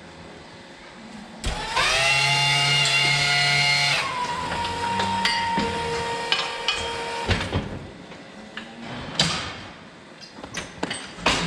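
Hoof-trimming crate's hydraulic pump motor starting with a rising whine about a second and a half in and running loud for about two seconds, then a lighter steady whine for a few seconds more. Metal clanks and knocks of the crate's frame and latches follow near the end, as the crate is worked to release the cow.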